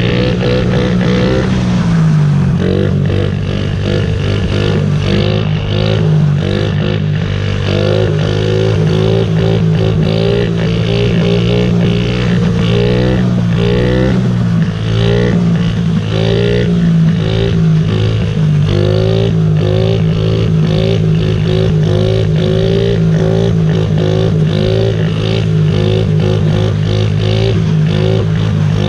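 Honda CRF50 pit bike's small single-cylinder four-stroke engine running under way. It holds a fairly steady note, with small rises and dips in pitch as the throttle changes.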